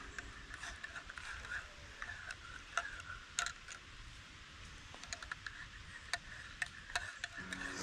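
Metal spoon clinking against a blue enamel camp mug while coffee is stirred: scattered light ticks at uneven spacing, over a faint steady hiss.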